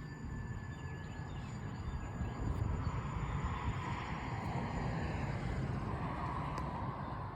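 Steady rumble and rushing noise of a moving train or vehicle, growing louder about two and a half seconds in; no horn sounds.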